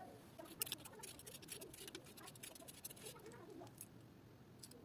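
Faint, irregular run of small clicks and crackles, thickest in the first few seconds and thinning out toward the end.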